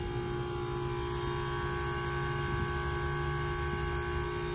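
Carrier heat pump outdoor unit running in defrost mode: a steady hum from the compressor, with several steady tones and no change in level.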